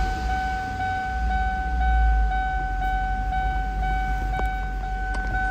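2002 Ford Thunderbird's 3.9-litre V8 idling, its revs settling down from a fast idle. A steady high-pitched tone runs over the engine sound.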